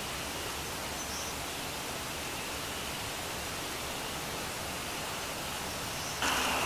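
Steady, even hiss of open-air background noise with no distinct events. Near the end it steps up into a louder rushing noise.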